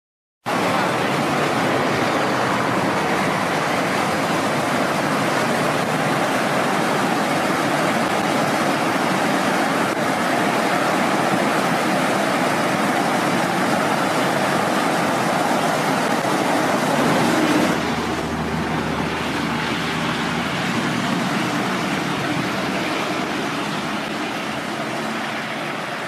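Mountain stream of the Oirase Gorge rushing in a steady, loud hiss of water. About two-thirds of the way through it changes abruptly to a softer, deeper rush.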